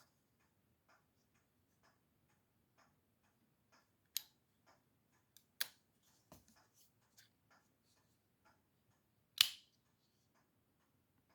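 Faint, steady ticking about once a second, broken by a few sharp clicks from handling Honey Badger folding pocket knives. The loudest click comes near the end.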